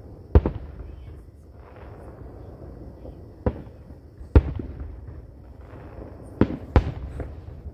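Aerial fireworks bursting: five sharp bangs, one about half a second in, two close together around three and a half to four and a half seconds, and a quick pair near the end, each trailed by a short low rumble.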